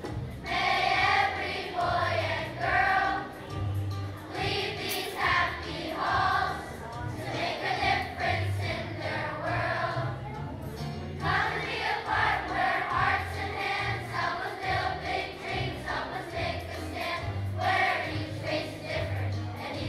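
A large children's choir singing a song together, with instrumental accompaniment underneath.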